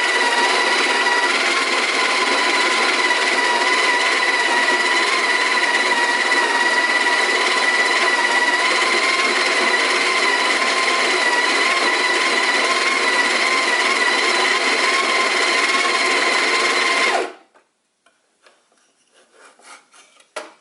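Breville Smart Grinder Pro conical burr grinder grinding coffee beans for espresso: a loud, steady motor-and-burr noise with a steady whine, running about seventeen seconds before cutting off abruptly. A few faint clicks and taps follow.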